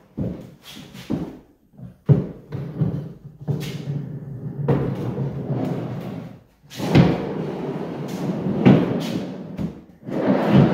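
Large plywood truck-bed drawer rolled in and out on its steel-angle tracks with bearings: a rolling rumble in two long runs, with several sharp knocks as it stops and starts.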